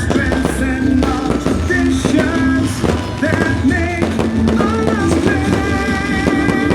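Music: an upbeat song with a steady beat and a melody of held, wavering notes.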